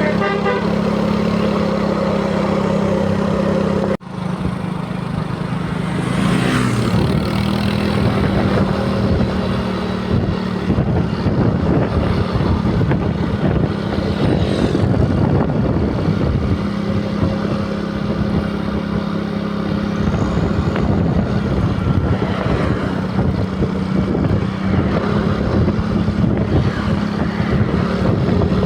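Bus engines running amid traffic noise, with a steady low hum underneath. The sound drops out sharply about four seconds in, then comes back louder and noisier.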